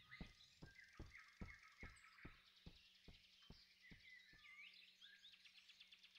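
Faint forest ambience with small birds chirping, and a run of light even ticks about two or three a second that fade away.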